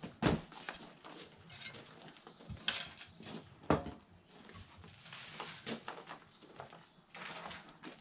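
Irregular knocks, crunches and rustles of garden work: footsteps on bark chippings, a spade in the soil of a wooden raised bed and a sawn-off branch being handled. The sharpest knocks come about a third of a second in and just before four seconds in.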